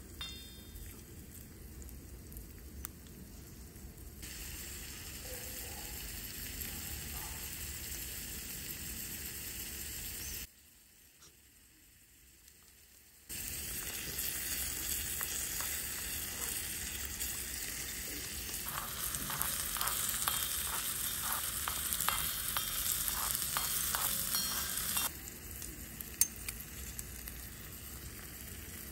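Chopped onions and tomatoes sizzling in a miniature kadai over a tiny wood fire, with a small spatula stirring and scraping the pan. The sizzle drops out for about three seconds near the middle. Later it returns louder, with quick scraping strokes about twice a second, before settling to a lower hiss near the end.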